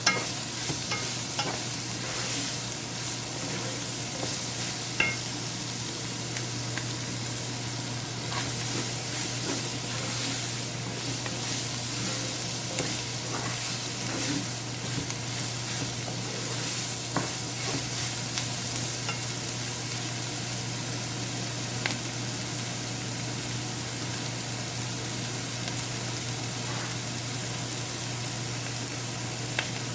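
Sliced onions and mushrooms sizzling steadily in hot oil in a frying pan while being stirred, with a few sharp clicks of the utensil against the pan.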